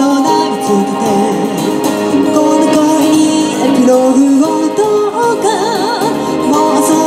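A woman singing a pop song live into a microphone over backing music, holding one note with vibrato a little after five seconds in.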